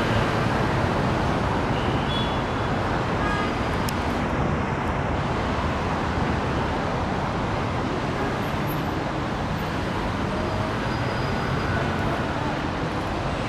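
Steady road-traffic noise, an even wash of passing cars with no single vehicle standing out.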